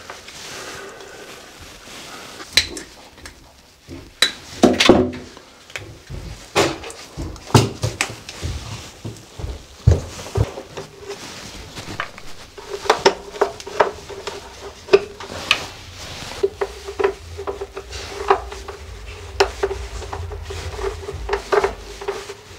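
Hand work on wiring: gloved hands slide green-and-yellow sleeving over an earth conductor and work the cable into place at the earth terminal. Scattered clicks, taps and rubbing, with a cluster of sharper taps about two-thirds of the way in.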